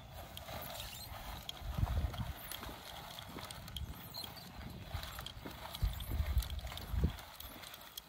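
Earthway push seeder being rolled along a tilled row, its wheels and seed-plate mechanism clicking and rattling as it drops seeds. A few heavier low thumps come about 2 s, 6 s and 7 s in.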